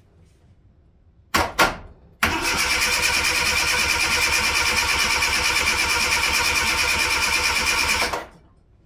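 Zastava 1100p's four-cylinder engine being cranked by its starter motor, hot-wired at the ignition connector after a long standstill. Two short bursts of the starter come first, then about six seconds of steady, evenly pulsing cranking that stops abruptly. The engine does not catch, and the owner then suspects the choke setting.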